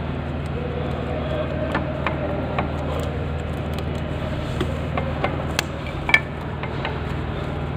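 A few light metallic clicks and clinks of a spanner and bolts handled on a motorcycle's chain case cover, scattered over a steady low hum. The sharpest click comes a little after six seconds in.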